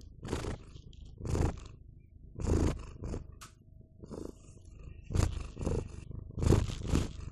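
Grey domestic cat purring close to the microphone, the purr coming in short pulses about once a second as it breathes in and out.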